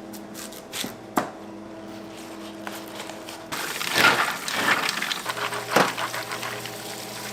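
Restaurant kitchen work sounds: a few sharp knocks and clicks over a steady hum, then, about halfway, a louder noisy stretch of clatter with two stronger knocks.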